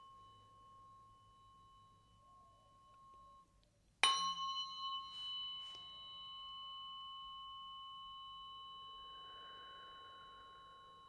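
Tuning forks ringing with clear, steady high tones. An earlier ring fades out, then a fork is struck about 4 seconds in and rings on, slowly dying away, as used in biofield tuning.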